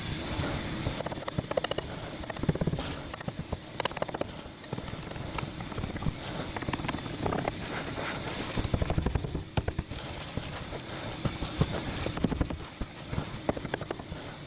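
Hand tools knocking and scraping on rusted sheet metal and rust scale: a dense, irregular run of sharp knocks and clicks over a steady scraping noise.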